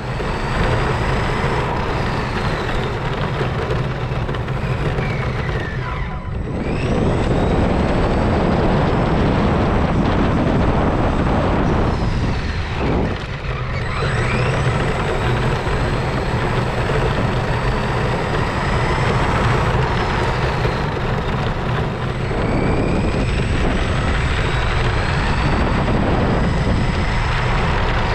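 Radio-controlled car driving fast along asphalt, heard from a camera riding on it: a steady rumble of tyres on the road and wind on the microphone, with a high motor whine that rises and falls with the throttle. The rumble drops briefly about six seconds in and again around twelve seconds.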